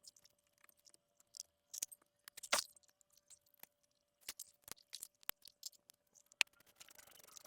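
Irregular metallic clicks and clinks of hand tools and brake caliper parts being handled during reassembly, the loudest about two and a half seconds in, over a faint steady hum.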